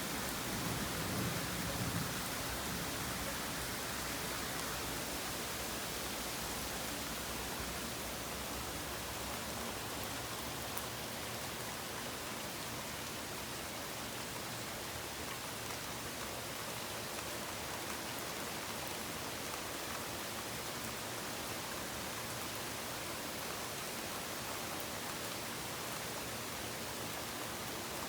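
Steady, heavy rain falling during a thunderstorm, an even hiss of drops. A low rumble, typical of distant thunder, fades out in the first couple of seconds.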